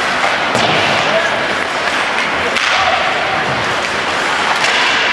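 Ice hockey game sounds in a rink: a steady rush of skates and arena noise broken by a few sharp knocks of sticks and puck, with faint shouted voices.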